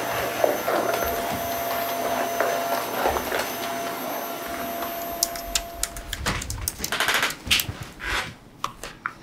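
Household vacuum cleaner running steadily, then cutting out about five or six seconds in, followed by a run of short sharp clicks and taps.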